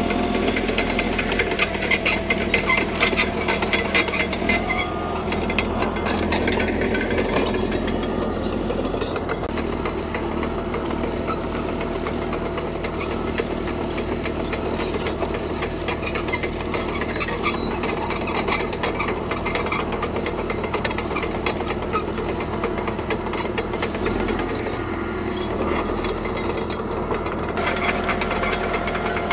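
CAT D3K crawler bulldozer working: its diesel engine runs steadily under load while the steel tracks and blade clatter and grind through gravel, the metallic clatter heaviest in the first few seconds.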